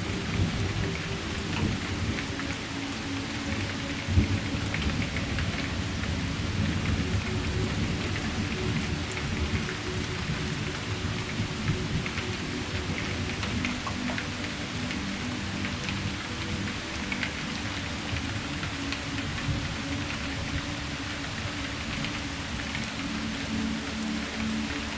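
Steady rain falling, with scattered drops ticking, over soft music of long held notes.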